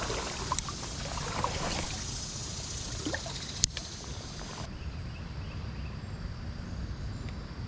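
Creek water rushing and trickling over a low rumble, with a few small clicks and one sharp click about three and a half seconds in; the high hiss drops away abruptly about two-thirds of the way through.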